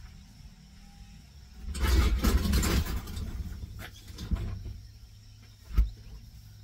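A refrigerator being handled and moved up to the open rear of a cargo van: a loud rushing, scraping noise about two seconds in, smaller shuffles, and one sharp knock near the end.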